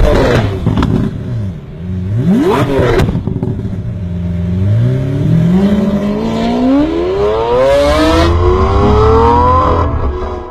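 Turbocharged 1.6-litre four-cylinder of a modified Kia Cerato Coupe (stage 2, downpipe, dump valve) is revved sharply twice, its pitch shooting up and dropping back, then pulls hard with the revs climbing steadily for several seconds. Short hisses from the dump valve venting come through among the revs.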